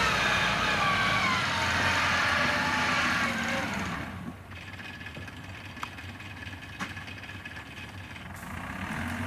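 Farm tractor engine running as it hauls a cart loaded with rice sacks. About four seconds in, the engine note drops to a quieter steady hum.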